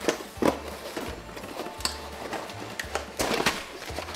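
Cardboard box being opened and handled, with bundled sections of HO Bachmann E-Z Track with plastic roadbed lifted out: a few sharp taps and knocks among rustling and scraping of cardboard.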